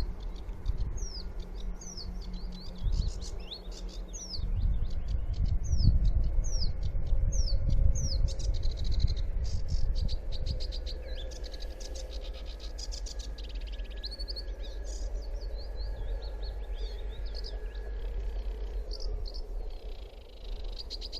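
Sedge warbler singing: a run of quick, down-slurred high whistled notes, roughly one or two a second, giving way after about eight seconds to scratchier, chattering phrases. A low rumble runs underneath.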